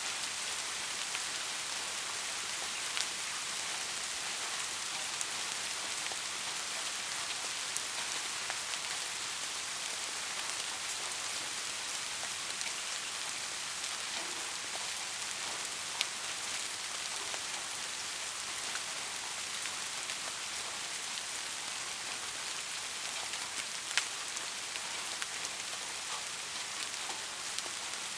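Steady rain falling, an even hiss with scattered sharper drop ticks, a few louder single drops standing out.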